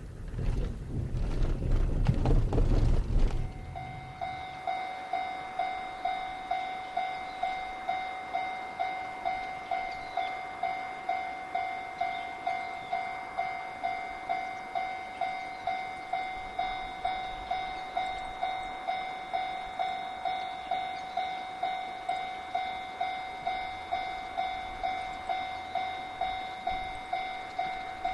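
Japanese railway level-crossing warning bell, starting about three and a half seconds in and ringing steadily at a little under two strokes a second, signalling an approaching train. Before it comes a loud low rumble that stops abruptly.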